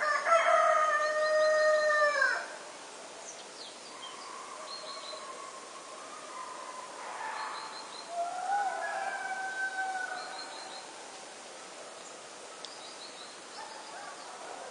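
A rooster crowing: one loud, long call in the first two seconds or so that drops at its end, then a fainter crow about eight seconds in. Small birds chirp faintly in between.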